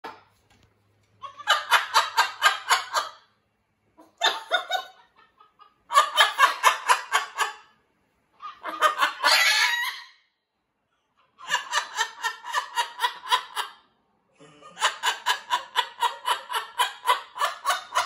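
Jubilee hybrid macaw imitating a human laugh: six bouts of quick, clipped "ha-ha-ha" pulses, each lasting one to two seconds, with short pauses between them.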